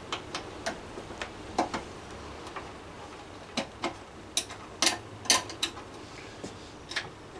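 Over a dozen sharp clicks and light taps at irregular spacing, loudest around the middle, from a small hand tool and a metal grab rail being handled at the rail's mounting on a Vespa scooter.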